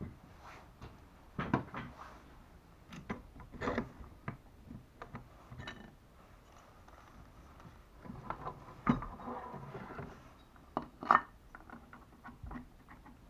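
Irregular clinks and knocks of metal hoist-motor parts being handled and set down, with a few sharper knocks scattered through; no motor is running.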